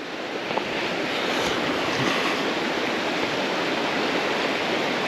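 A creek running: a steady rush of flowing water.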